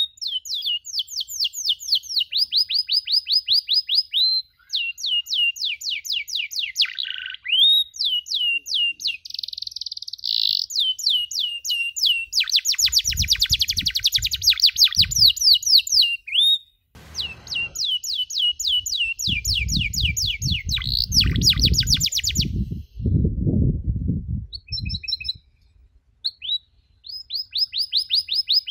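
Domestic canary singing a long song of fast trills: rows of rapid, evenly repeated high sweeping notes, changing pattern every few seconds with short pauses. A low rumble sounds underneath in the middle of the song.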